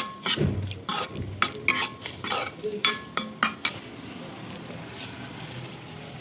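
A metal spoon stirs and scrapes in a cooking pan, with quick clinks against the metal over the first few seconds. After that a steady sizzle of food frying is left on its own.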